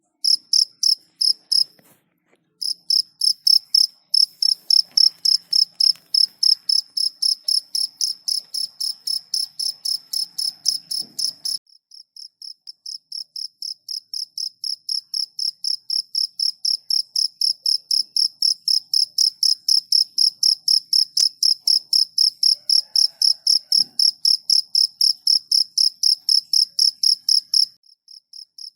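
A cricket chirping in an even, fast rhythm of about three to four high-pitched chirps a second. It pauses briefly about two seconds in, drops in loudness a little before the middle and slowly swells back, then stops briefly near the end.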